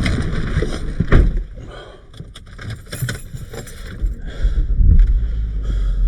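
A car door shuts with a thump about a second in, muffling the wind noise. A few seconds later the car's engine starts and settles into a low, steady idle.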